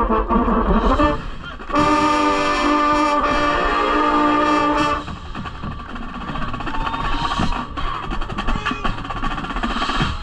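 Drum and bugle corps brass and percussion playing: a loud held brass chord a couple of seconds in, dropping at about the halfway point to a quieter passage with drum and mallet percussion strokes.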